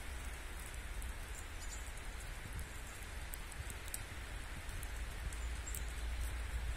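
Wet snow falling and dripping: a steady soft hiss with scattered light ticks of flakes and drops, over a steady low rumble.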